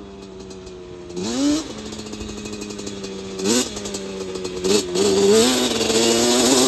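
Yamaha Banshee 350's two-stroke parallel-twin engine running at steady part throttle. It gets quick rev-ups about a second in, at about three and a half seconds and near five seconds, and grows louder as the quad comes closer.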